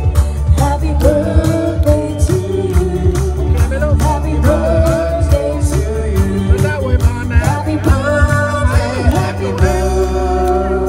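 A live band playing a song, with a singer carrying a held, wavering melody over a steady drum beat.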